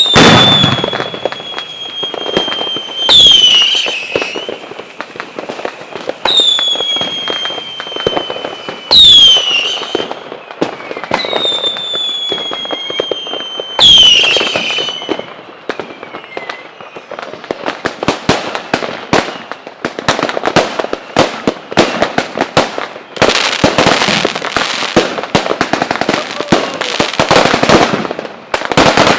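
Fireworks going off. In the first half, several whistling shells each give a sharp burst and then a high whistle that slides slowly down in pitch. After that comes dense, rapid crackling, thickest near the end.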